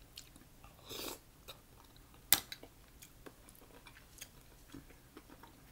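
Close-up mouth sounds of a person eating a mussel: quiet chewing with scattered small clicks, a brief rustle about a second in and a sharper click a little over two seconds in.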